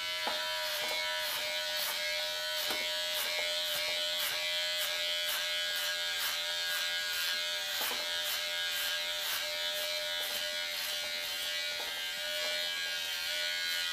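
Unix electric hair clippers running with a steady buzz as they cut hair at the back of the head, with faint regular ticks about twice a second.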